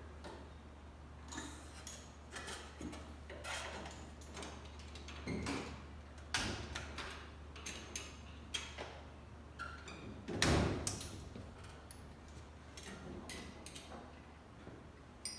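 Scattered clinks and knocks of hand tools and metal parts during engine installation work, with one heavier knock about ten seconds in, over a steady low hum.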